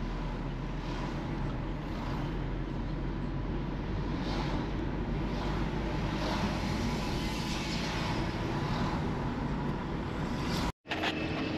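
A car driving, a steady engine and tyre rumble. It cuts off abruptly near the end, and a different steady hum follows.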